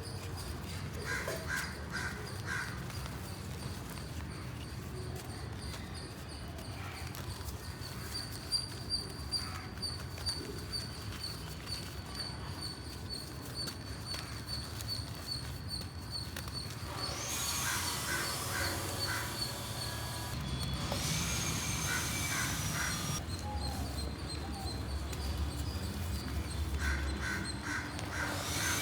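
Crows cawing in short runs of repeated calls, several times over, above a steady low rumble; a few brief knocks come about a third of the way in.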